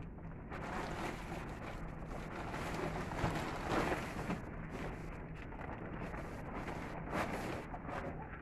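Plastic tarpaulin sheets rustling and crinkling as they are handled, loudest in the first half, with another short burst about seven seconds in.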